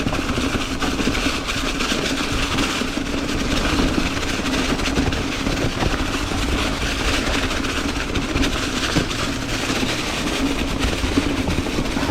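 Ibis Ripmo V1 mountain bike riding down a rocky, leaf-covered singletrack. The tyres make a steady rolling rumble over leaves and rock, and the bike keeps up a dense rattle of small clicks and knocks.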